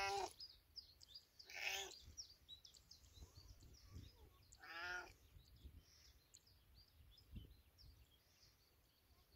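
Domestic cat meowing three times: one meow trailing off at the start, a rougher one about a second and a half in, and a clear one about five seconds in. Faint short high chirps can be heard in the background between the meows.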